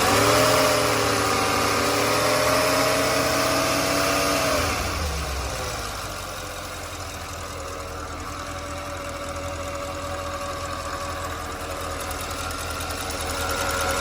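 Porsche Cayenne Turbo 958's twin-turbo V8 held at about 2000 rpm for roughly four and a half seconds, then the revs fall back and it idles steadily. The owner hears a turbine-like whine from the engine, mostly as it gains revs, and is unsure whether it is normal.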